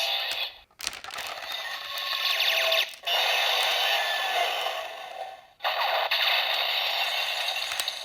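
CSM Medagabryu toy axe playing its electronic sound effects through its small built-in speaker: the chewing sound after coin medals are fed into the dinosaur head's mouth, running into its finisher-ready audio. The sound is thin and comes in four stretches split by short breaks.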